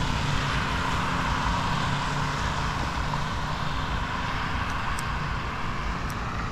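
Steady hiss of vehicle tyres on a rain-wet road, with a low rumble underneath and a couple of faint ticks near the end.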